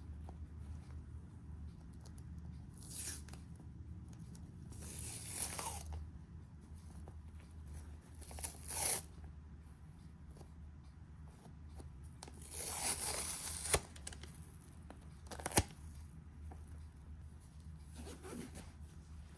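Packaging being torn open and handled during an unboxing, in several short separate tearing sounds, with a sharp click later on.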